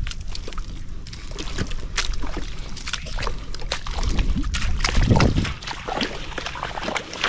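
Footsteps squelching and sloshing through soft wet mud and shallow puddles on a tidal mudflat, a string of short wet sucking clicks, with a heavier low squelch or rumble about five seconds in.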